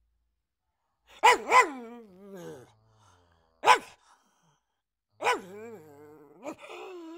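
Fawn pug barking: after a second of quiet, a quick double bark that trails off into a lower, falling call, then a single short bark in the middle, and near the end another bark that runs on into a long, wavering call.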